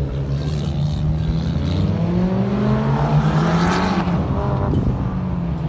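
Mitsubishi Lancer Evolution X's turbocharged four-cylinder, fitted with a 3-inch stainless steel catback exhaust, accelerating across a dirt course: the engine note climbs to a peak about three and a half seconds in, then falls away.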